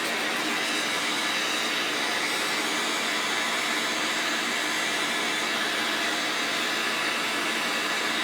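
Forge running with a steady, even rushing noise from its burner and air blast while a billet heats for forge work.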